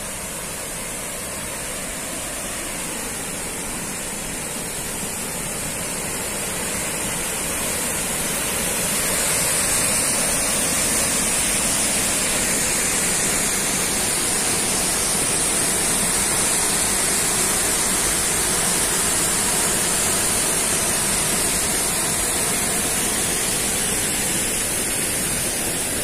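Waterfall and river rapids rushing as a steady roar of water, growing louder about eight seconds in.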